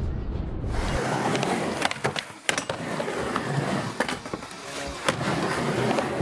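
Background music cuts off about a second in. Then a skateboard's wheels roll on a wooden mini ramp, with several sharp clacks of the board and trucks hitting the ramp and its metal coping.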